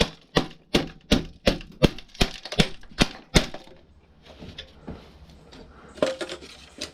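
Rapid, evenly spaced sharp knocks, about three a second, on a karaoke machine being pulled apart for scrap; they stop about three and a half seconds in, leaving softer clicks and handling noise.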